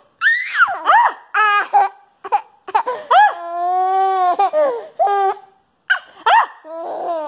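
A toddler laughing and squealing in short bursts, with one long, held squeal about three seconds in.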